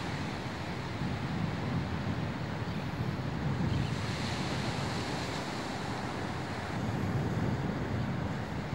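Small waves breaking and washing up a sandy shore, mixed with steady wind noise on the microphone.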